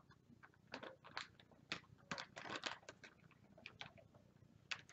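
Faint, irregular crinkling and crackling of a plastic zip-top bag of water being handled and hooked onto a small spring scale.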